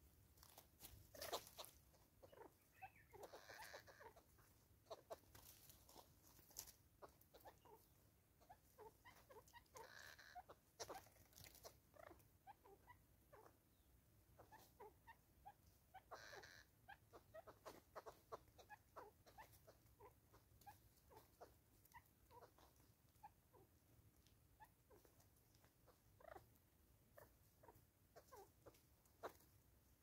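Natal spurfowl pecking seed off a wooden tree stump: faint, irregular taps and clicks of its bill on the wood, several a second.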